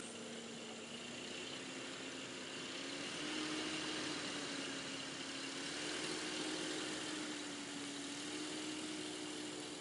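A Ford Ranger pickup's engine running as the truck drives across a field towing a weighted homemade plank-and-plywood drag. The engine note steps up in pitch about three seconds in and then wavers gently.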